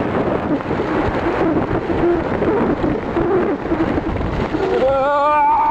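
Wind buffeting the microphone and bicycle tyres crunching over a gravel dirt road while riding. About five seconds in, a held pitched tone starts and rises slightly.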